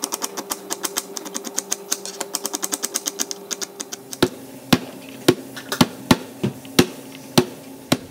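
Kitchen knife cutting on a plastic chopping board: quick, even taps slicing an onion, about five or six a second, then from about four seconds in slower, louder chops into garlic cloves, about two a second.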